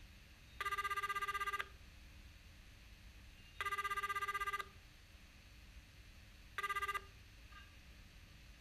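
Telephone ringing with an electronic trilling ring: three rings about three seconds apart, each about a second long, the third cut short after about half a second.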